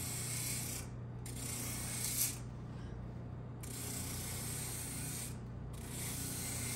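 Electric bench motor spinning a small 240-grit flap sanding drum, sanding the glued double-ply leather edge of a holster: a steady motor hum with a rasping hiss that comes and goes as the leather is pressed to the drum in four short passes.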